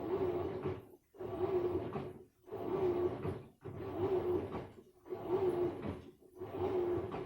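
Samsung washing machine in its wash cycle: even back-and-forth strokes a little over a second apart, about six in all, each a swish with a motor hum.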